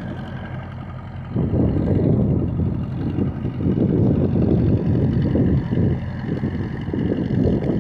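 Bulldozer's diesel engine running steadily, with a heavier rumbling noise coming in about a second and a half in and carrying on.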